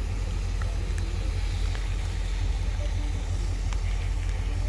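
Steady low rumble of a diesel locomotive engine, with the hiss of heavy rain and a few scattered raindrop taps.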